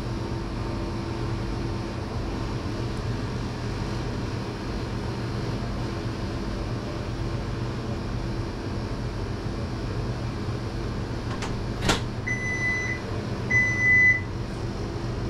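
Steady low electrical or ventilation hum, with a sharp click about twelve seconds in, followed right away by two short electronic beeps.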